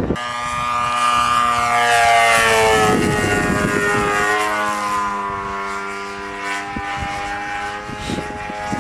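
Radio-controlled model airplane's motor and propeller whining steadily in flight. The pitch drops about two to three seconds in as the plane passes, then holds fairly steady.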